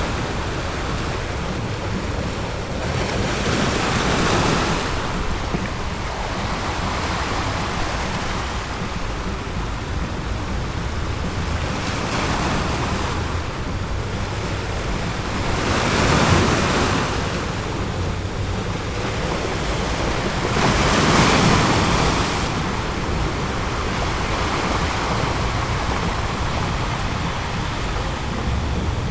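Ocean surf washing onto a beach: a steady low rumble of water with waves breaking in slow swells, the loudest two in the second half.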